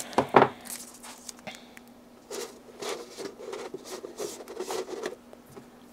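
Masking tape being handled and pressed onto a model aeroplane's engine cowl: a brief tearing sound near the start, then about three seconds of soft rubbing and crinkling as the tape is smoothed down.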